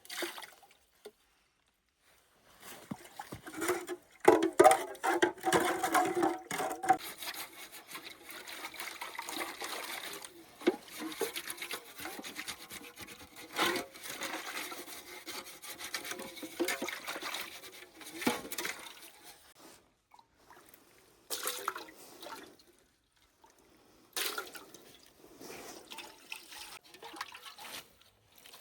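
Water pouring and splashing in uneven spells, loudest about four to seven seconds in, then a few short splashes near the end.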